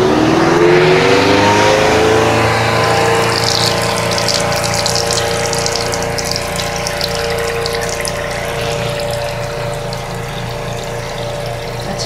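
Spin-dryer motor of a Giantex twin-tub portable washing machine starting a spin cycle. Its whine rises in pitch and settles into a steady hum about two seconds in, while spun-out water splashes from the drain hose into the bathtub.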